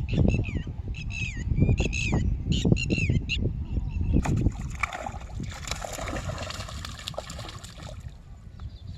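A bird squawking again and again, each call short and falling in pitch, over heavy splashing for the first few seconds. From about halfway, a hissing wash of splashing water for about three seconds, then quieter.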